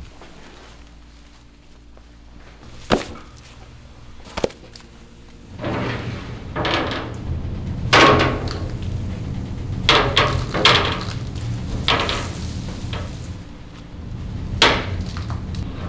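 A series of sharp knocks and thuds, some seconds apart at first and more frequent in the second half, over a steady low rumble that starts about a third of the way in.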